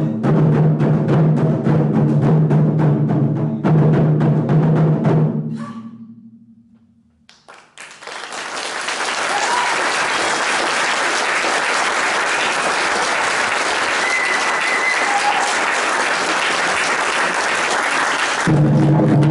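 Ensemble of taiko barrel drums struck in fast, dense strokes, dying away about five seconds in. After a brief hush, an audience applauds steadily for about ten seconds, and the drumming starts again just before the end.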